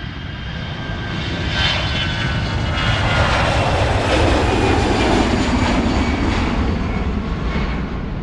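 An airplane flying past: engine noise with a steady whine that builds, is loudest about halfway through, then fades as its pitch drops.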